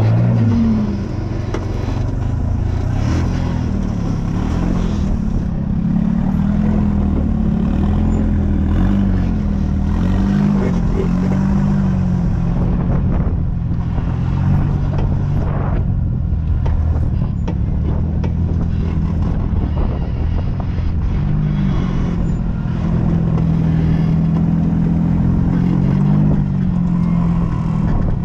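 Off-road vehicle engine running continuously, its pitch rising and falling again and again.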